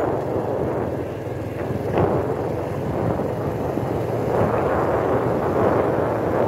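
Wind rushing over the microphone with the running noise of a moving vehicle on the road, steady throughout, with one short click about two seconds in.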